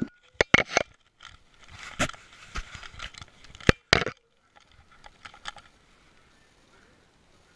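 Handling noise from a GoPro strapped to a dog's neck: sharp clicks and knocks with scraping and rustling as the camera rubs against fur and collar while the dog moves. A few softer clicks follow, and it goes quiet after about six seconds as the dog holds still.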